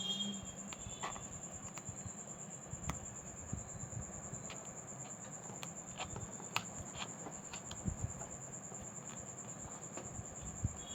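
Scattered small clicks and taps of hand tools working on a smartphone, over a steady high-pitched pulsing tone and a faint low hum.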